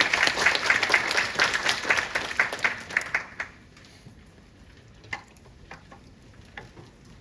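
Audience applauding, a dense patter of clapping that fades out about three and a half seconds in, followed by a few scattered single claps.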